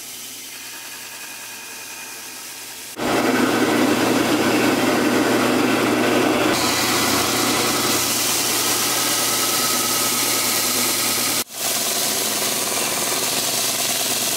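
Belt grinder running while a Damascus steel knife blade, clamped in a bevel jig, is ground against the belt. After about three seconds of a quieter steady running sound, a loud, rough grinding noise comes in suddenly and carries on, breaking off for an instant near the end before resuming.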